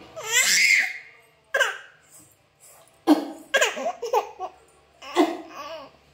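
Baby laughing in several separate bursts: a long high-pitched laugh at the start, a short one a little later, then a run of quick laughs in the middle and another near the end.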